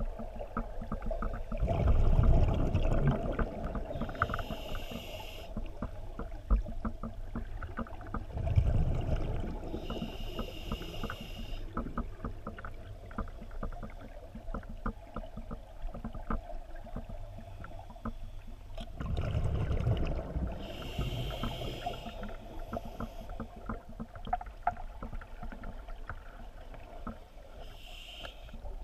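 A scuba diver breathing underwater through a regulator. Three or four breaths, each a low rumbling burst followed by a hiss, over a steady low underwater background.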